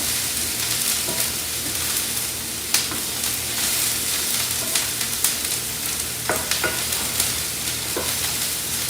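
Minced green onion and garlic sizzling steadily in hot oil in a pan, with a few sharp clicks of a utensil against the pan as it is stirred.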